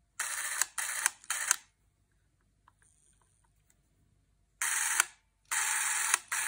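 Super 8 cine camera's electric motor (Beaulieu 4008 ZM4) whirring in short runs, each switched on and off sharply: three quick runs at the start, a pause, then three more near the end.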